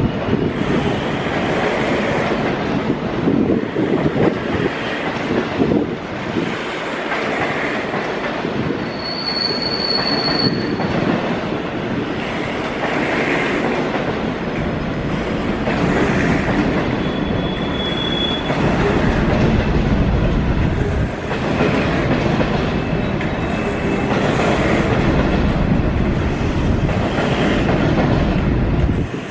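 Freight train of bogie hopper wagons hauled by a Class 66 diesel locomotive, rolling past with a steady clatter of wheels over the rails. Brief high-pitched wheel squeals come about ten seconds in and again near eighteen seconds.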